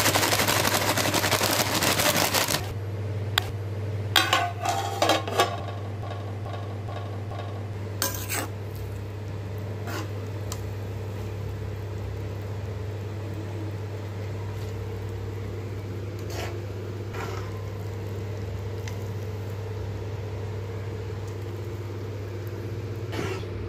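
Metal utensils clinking and scraping against a steel pan and plate as cooked rice vermicelli is stirred and drained. A steady low hum runs underneath. A loud, even hiss fills the first two or three seconds, then stops.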